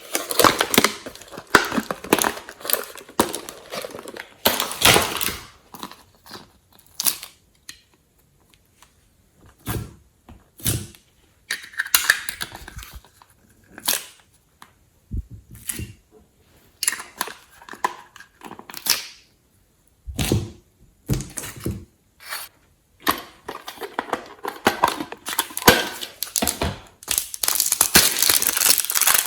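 Glossy slime being worked by hand: irregular sticky crackles, clicks and squelches, in bursts with short silent gaps.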